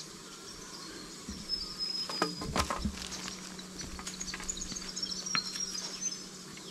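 Footsteps crunching over dry leaf litter and loose stones in a dry creek bed, with sharp clicks of stones shifting underfoot, against short high chirping in the background.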